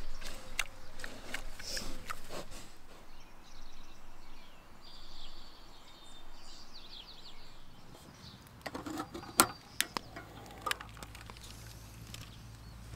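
Small birds chirping over quiet outdoor ambience, amid scattered clicks, with a few sharp knocks near the end; a low steady hum comes in just before the end.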